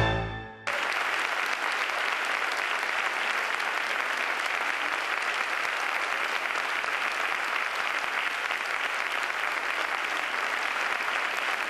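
The music's last loud chord rings out and dies away, then audience applause starts abruptly under a second in and carries on steadily.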